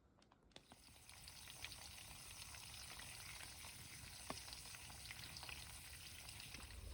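Faint crackling hiss dense with small ticks, starting about half a second in and holding steady.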